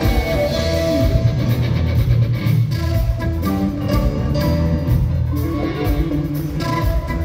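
Rock band playing live, heard from the audience: electric guitar, bass guitar and drums, with flute coming in during the passage.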